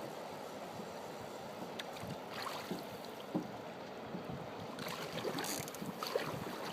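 Steady rush of moving water with some wind, and a few faint knocks.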